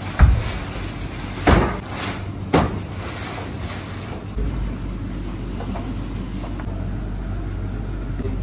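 Kitchen handling noise: three dull knocks about a second apart, then a steady low hum from about halfway through.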